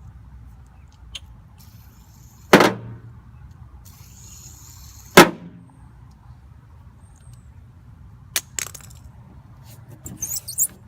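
Two loud, sharp clangs about two and a half seconds apart, each with a short ringing tail, as a spinning fidget spinner strikes the Jeep Wrangler's body. A few faint clicks follow near the end.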